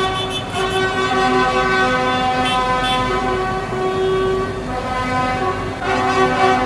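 Vehicle horns sounding in long, overlapping held tones, easing off briefly about five seconds in and then sounding louder again.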